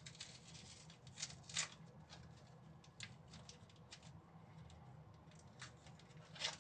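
Kitchen knife cutting an onion: a handful of faint, irregular crisp cuts and clicks, with a low steady hum underneath.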